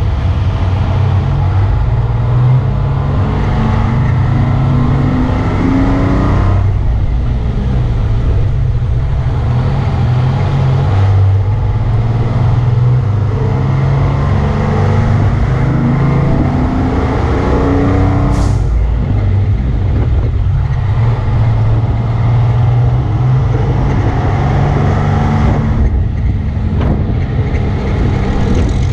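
Ford L-9000 fire truck's engine pulling under load as the truck drives, heard from outside on the cab roof. Its pitch climbs and then drops back about three times as it works up through the gears.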